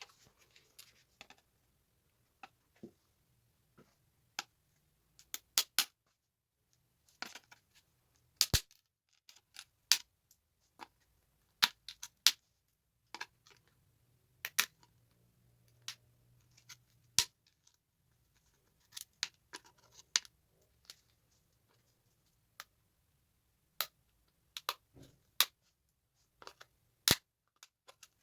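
Irregular sharp clicks and snaps, sometimes in quick pairs or small clusters, of tiny tactile switches being snipped and broken apart with a small cutting tool.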